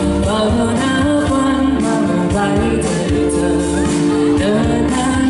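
Live pop music over a PA: a woman singing a held melody into a microphone over bass and a steady drum beat.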